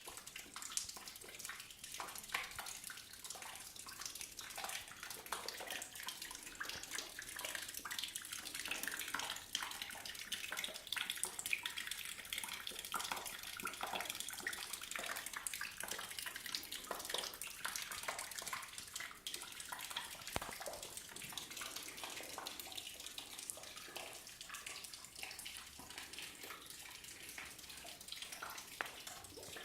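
Water running and splashing steadily, with many small drips and spatters over the flow.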